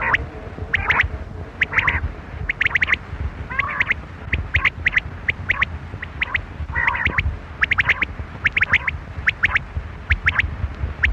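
Quail calling: short, sharp high notes in quick groups of two to four, repeated about once a second, over a low rumbling background noise.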